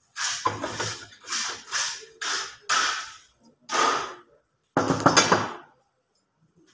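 Steel reinforcing bar being bent by hand around the pins of a steel bending plate with a bending bar: a run of short grating scrapes of steel on steel, about one a second, the last and loudest near the end.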